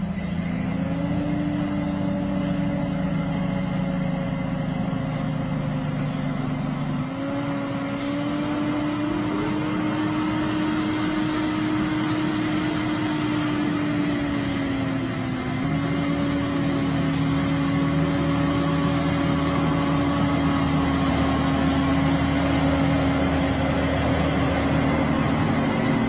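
Loaded log truck's diesel engine pulling hard up a steep dirt grade, its pitch shifting twice as it labours. The sound grows louder as the truck comes close.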